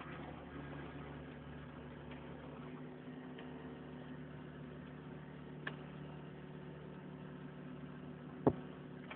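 Backhoe's diesel engine running steadily. A light click comes about halfway through and a sharp knock near the end.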